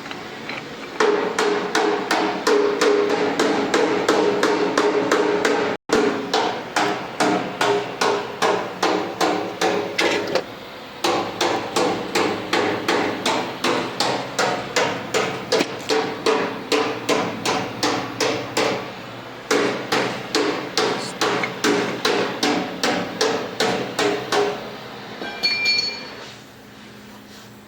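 A hammer striking metal in fast, steady blows, about three a second, each blow ringing. The blows come in three long runs with brief pauses between them and stop near the end.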